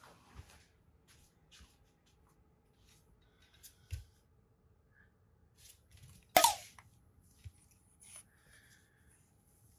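Quiet room with scattered soft clicks and rustles, and one short, sharp sound about six and a half seconds in.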